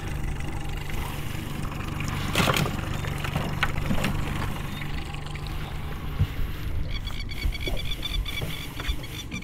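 Handling knocks in an aluminium boat, with one sharper clunk about two and a half seconds in, over a steady low hum. From about seven seconds in, a rapid high chirping starts up.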